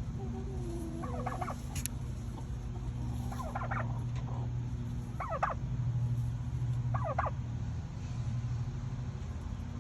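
Tom turkeys gobbling: four short, fast-rattling gobbles spaced a second or two apart, over a steady low hum.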